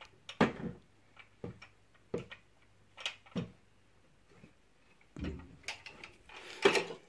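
Scattered light knocks and clicks from a clear plastic tub and the tools being handled on a wooden table, with a faint low hum in the first few seconds.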